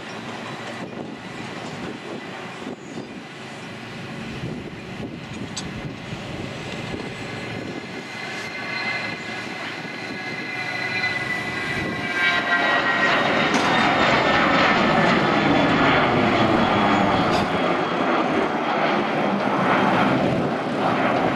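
Cessna Citation Latitude's twin Pratt & Whitney Canada PW306D1 turbofans at takeoff thrust, growing louder through the takeoff roll and liftoff. A high whine drops slightly in pitch as the jet passes, then the engine noise is at its loudest as it climbs away.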